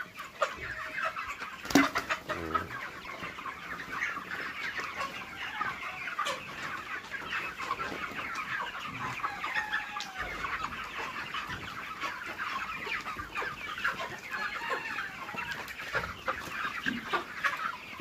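A flock of broiler chickens cheeping and clucking together, dense and continuous, from birds the keeper says are ill with a throat and breathing problem. A single sharp knock about two seconds in.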